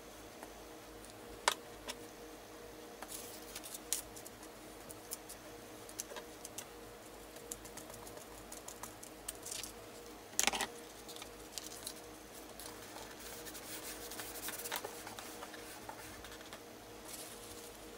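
Paper cutouts being handled and laid onto a canvas: scattered light clicks and soft rustles, with a louder paper rustle about ten seconds in, over a faint steady hum.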